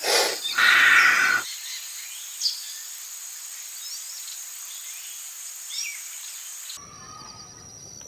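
Forest ambience: a loud breathy hiss for about a second and a half, then a steady high hiss of the background with a few faint bird chirps. About seven seconds in the background changes to a different one with a rhythmic high chirping trill.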